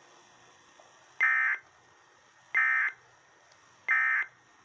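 Emergency Alert System end-of-message data bursts: three short, identical bursts of high digital warbling tone about a second and a third apart. They mark the end of a National Weather Service severe thunderstorm warning broadcast.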